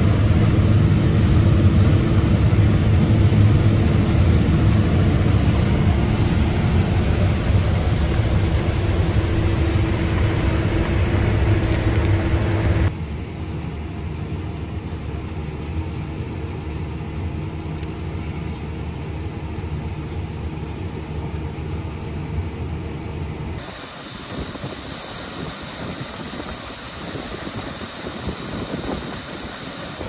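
Combine harvester cutting corn, heard from inside the cab: a loud, steady machine drone with a held hum. About 13 seconds in it cuts to a quieter, steady low machine rumble by the tractors and auger. About 23 seconds in that gives way to the hiss of shelled corn pouring from a gravity wagon's chute into an auger hopper.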